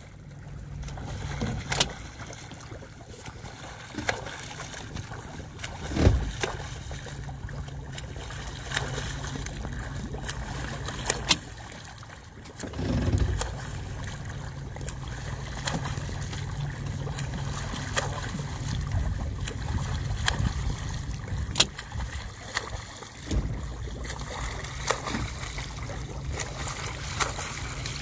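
Escort boat's motor running slowly and steadily, with water splashing and a few louder low thumps.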